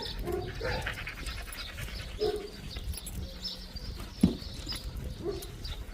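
Puppies giving short whimpers and yips, a second or more apart, with one sharp knock a little after four seconds in.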